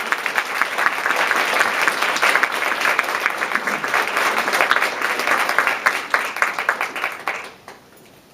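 Audience applauding: many hands clapping densely, which dies away about seven and a half seconds in.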